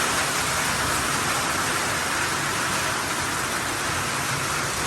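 Heavy hail and rain pelting down in a dense, steady hiss of hailstones striking surfaces.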